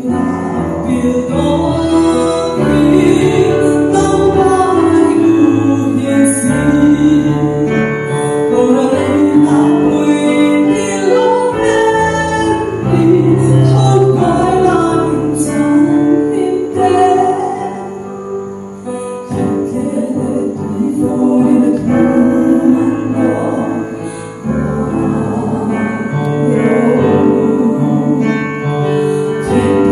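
A woman singing a gospel song solo into a microphone, over sustained instrumental accompaniment.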